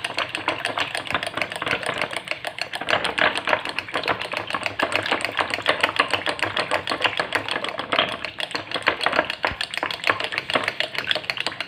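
Yogurt being beaten by hand in a bowl, a utensil clicking rapidly and continuously against the bowl as the curd is whipped smooth for raita.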